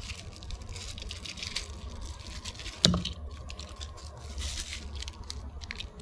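Clear plastic and bubble-wrap packaging crinkling and crackling in the hands as a small part is unwrapped, with one sharp click about three seconds in.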